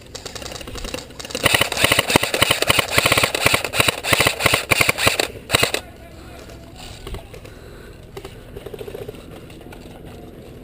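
Airsoft guns firing in rapid, crackling bursts for about four seconds, stopping suddenly about six seconds in.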